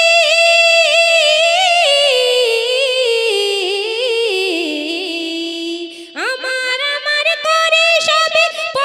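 A girl's solo voice singing a Bengali gojol (Islamic devotional song) into a microphone: a long held, ornamented note that slides slowly downward over several seconds. About six seconds in, she breaks briefly and starts again on a higher note.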